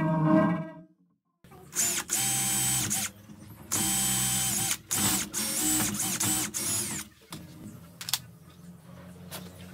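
Makita cordless drill running in three short bursts, each spinning up, holding speed and spinning down, as it drills into the edge of a plywood panel. A brief snatch of music plays in the first second, and a single click comes near the end.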